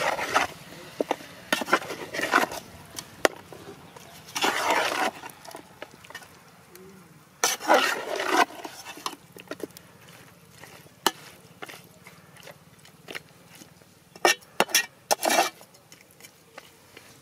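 A metal spatula scraping and knocking against an aluminium cooking pot as chicken pieces are stirred. It comes in several scraping strokes half a second to a second long, with scattered clicks and taps between them.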